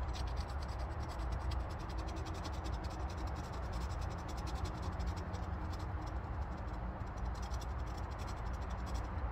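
A knife blade scraping tinder card into fine shavings to make fire-lighting tinder: rapid, repeated scratching strokes with a couple of short pauses near the end.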